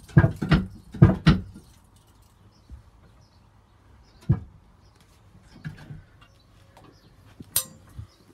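A quick run of sharp knocks and clunks in the first second and a half, then a single knock about four seconds in, a few softer knocks, and a sharp click near the end.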